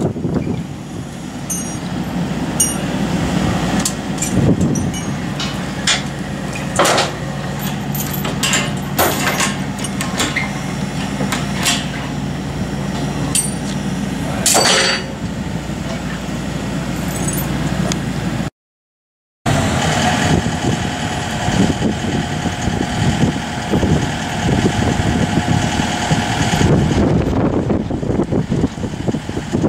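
Excavator diesel engine running steadily, with a few short metal clinks of hooks and rigging hardware. After a brief dropout the engine runs on with a steady whine over it.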